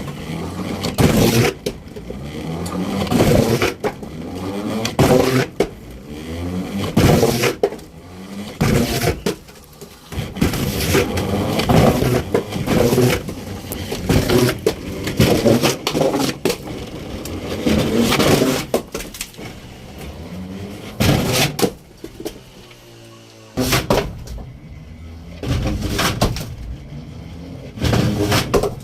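Firewood logs sliding one after another through a long pipe: repeated rushing, scraping surges with knocks, about one every one to two seconds, with a brief lull near the end.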